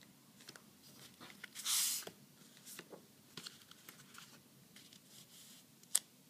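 Paper cards being handled on a tabletop by hand: a short rustle of sliding card about two seconds in, scattered small taps and scrapes, and a sharp tap near the end as a card is pressed down.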